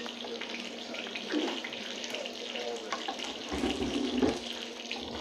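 Water running steadily from a tap into a sink, with a few light knocks.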